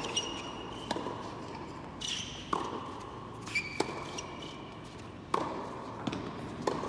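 Tennis rally on an indoor hard court: racquet strikes and ball bounces about once a second, with short squeaks of players' shoes on the court between them.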